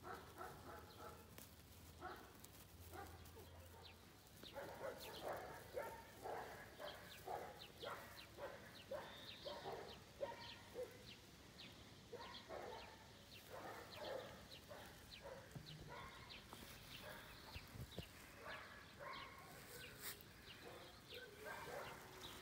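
An animal calling in short, faint, repeated cries, about two a second, starting about four seconds in and thinning out later.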